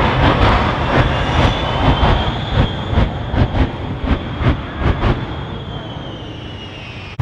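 P-51 Mustang's Merlin V12 engine at high power as the plane climbs away low over the runway: a loud drone with a high whine and sharp cracks repeating two or three times a second. Near the end the sound fades and the whine drops in pitch.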